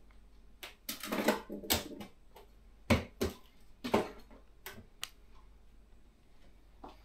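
Scattered household handling sounds in a kitchen: a short rustle about a second in, then a handful of sharp, irregular knocks and clicks of objects being picked up and set down.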